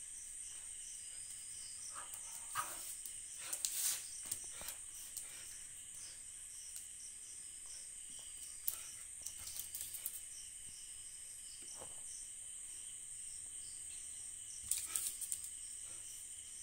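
Steady, high-pitched chirping of night insects, with a few brief scuffs and taps at intervals.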